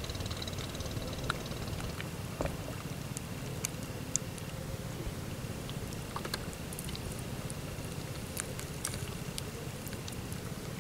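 A small engine running steadily at low revs in the background, a low pulsing rumble, with scattered faint clicks over it.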